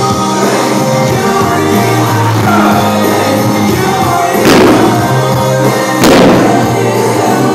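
Background music with singing, and two loud crashes about a second and a half apart in the second half.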